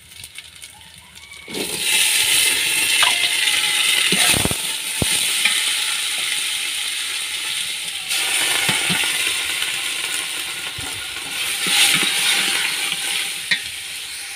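Chopped vegetables and Malabar spinach leaves hitting hot oil in an aluminium pot and sizzling, starting about a second and a half in, with a metal ladle knocking against the pot as they are stirred. The sizzling surges again about eight seconds in as more vegetables are tipped in.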